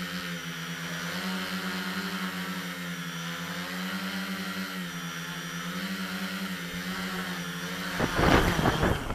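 Multirotor drone's electric motors and propellers humming steadily from on board, the pitch rising and falling slightly as it descends. About eight seconds in, a loud rattling clatter as it touches down on the concrete.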